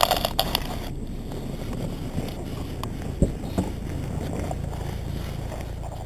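Saab car door opening and a person climbing out onto snow: a few clicks and knocks at the start and one sharp knock about three seconds in, over a steady low rumble of handling and wind noise.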